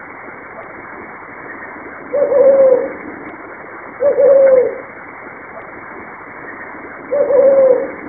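Brown fish owl calling: three deep hoots a couple of seconds apart, each under a second long, wavering at the start and dropping in pitch at the end.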